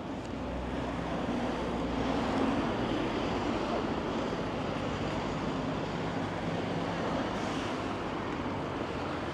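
Road traffic passing on a busy street, a steady rush of engine and tyre noise with a low rumble in the first couple of seconds.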